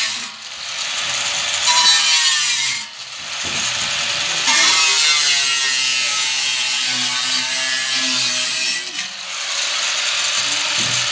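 A power tool cutting, a steady rasping noise that breaks off briefly three times.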